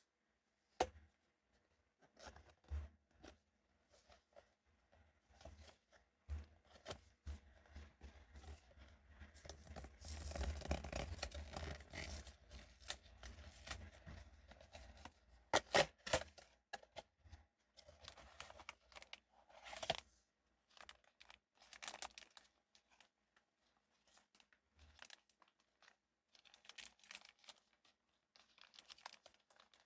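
Pop Mart blind-box packaging being handled and torn open: scattered crinkles and clicks, a longer stretch of tearing around the middle, and a few sharp snaps.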